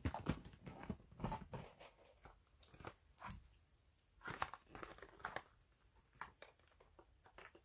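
Small cardboard gift box handled and turned over in the hands: faint, scattered rustles, scrapes and clicks of cardboard and paper.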